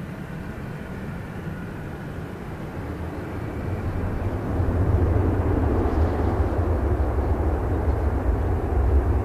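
Boeing 767-300ER's jet engines rumbling as it rolls out after landing. The deep rumble builds and grows louder about four seconds in, then holds.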